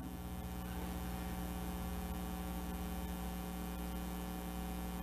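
Steady electrical mains hum: a low buzz made of several steady tones held unchanged.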